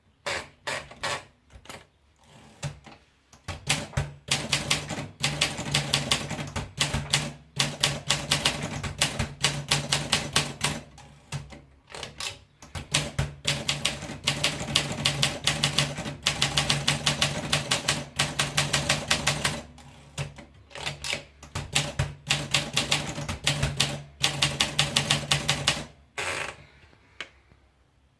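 Olympia Monica manual portable typewriter being typed on: fast runs of keystrokes broken by short pauses, stopping shortly before the end.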